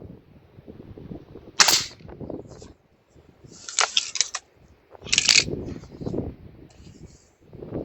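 A Gamo Whisper .22 break-barrel air rifle being fired and cycled: a sharp crack, then a quick run of metallic clicks as it is worked, and another sharp crack about five seconds in.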